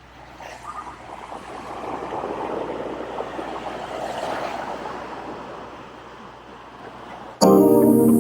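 Surf washing on a sandy beach: a haze of wave noise that swells and fades over a few seconds. Loud music cuts in suddenly near the end.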